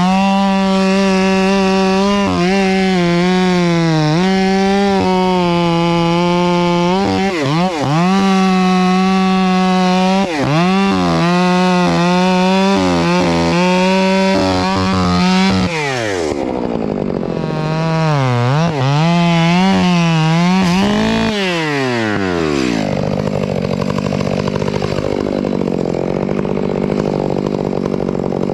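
Two-stroke chainsaw cutting wood at high revs, its pitch repeatedly sagging as the chain bites and recovering. Past the middle the revs swing down and up a few times, and at about three quarters through it drops to a steadier, lower and slightly quieter running note.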